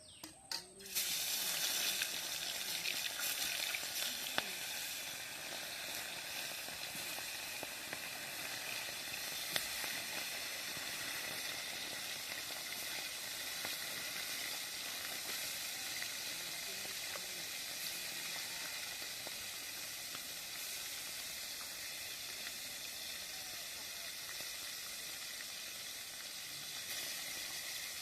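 Spices going into hot oil in a cooking pan, which bursts into loud sizzling about a second in and then keeps frying steadily.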